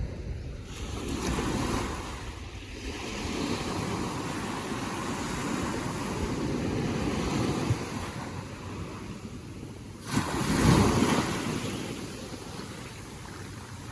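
Ocean waves washing in and drawing back, with wind rumbling on the microphone. A louder surge starts suddenly about ten seconds in.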